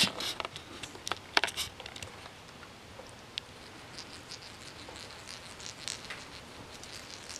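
Kittens' paws scuffling and claws catching on a shag carpet as they scamper and play, a run of soft scratchy ticks and patters. A few sharp clicks and rustles stand out in the first couple of seconds.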